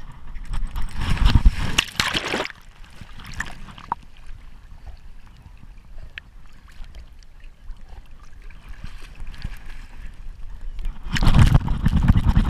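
Water sloshing and splashing around a labrador wading in a pond, heard through a camera strapped to the dog. Two loud rushing bursts of rubbing and knocking noise come on the camera, one near the start and one near the end.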